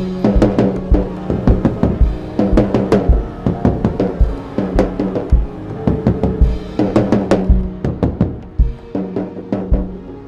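Instrumental music driven by heavy drums and percussion, with frequent hits over low held tones. It grows quieter near the end.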